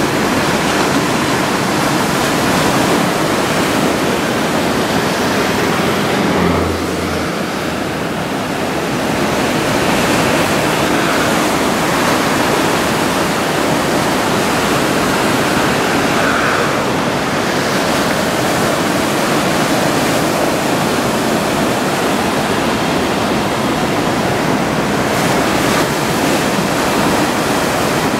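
Big surf from a typhoon swell breaking on the shore: a steady, dense rushing noise.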